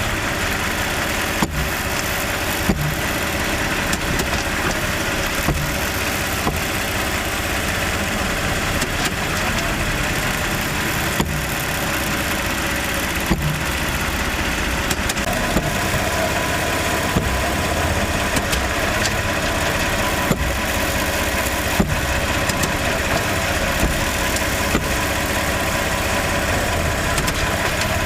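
Toyota RAV4 engine running steadily, with a short sharp clunk recurring every second or two. The clunk is the unexplained noise that persists after most suspect parts have been replaced.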